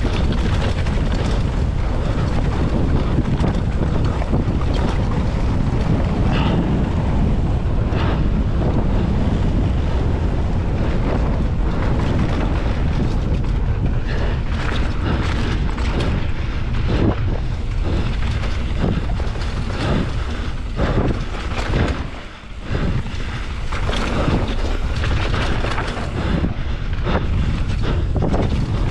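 Wind noise buffeting an action camera's microphone on a downhill mountain bike at speed, over the rumble of the knobby tyres on the dirt trail, with frequent rattles and knocks from the bike over bumps. The noise drops away briefly about three-quarters through.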